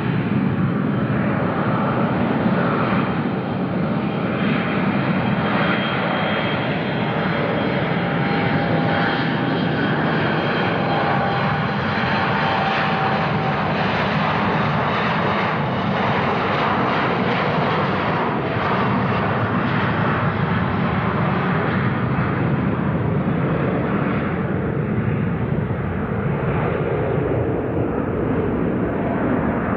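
Embraer ERJ-170 jet airliner's two GE CF34-8E turbofans at takeoff thrust: a loud, steady rumble with a faint whine in the middle, as the aircraft accelerates down the runway, passes and lifts off.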